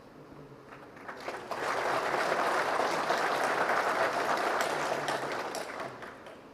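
Audience applauding: a few scattered claps about a second in, swelling quickly into full applause that holds, then dies away near the end.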